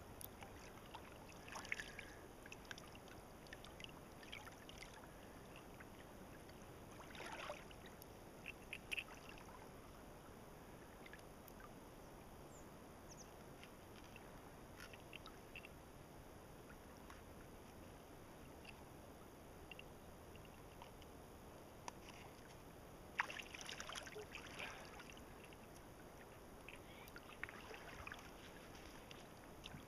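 Near silence: faint water ambience with a few light splashes and knocks, scattered near the start and in a short cluster near the end.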